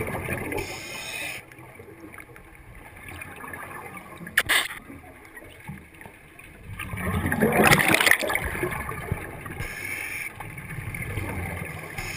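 Scuba diver breathing through a regulator underwater: hissing inhalations, and a loud rush of exhaled bubbles about seven seconds in lasting a second and a half, with a sharp click a little after four seconds.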